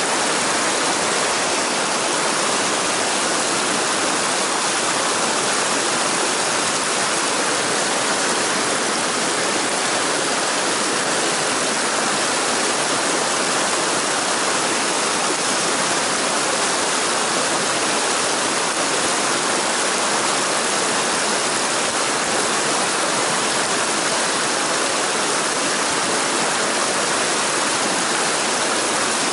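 Mountain stream rushing through boulder rapids: a steady, even rush of water.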